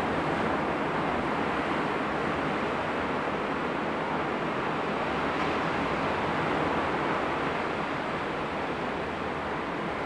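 Steady rush of ocean surf breaking below, mixed with wind, as one even, unbroken noise.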